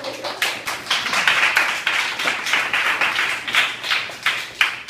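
A group of people clapping their hands together in a fairly even beat, about three claps a second.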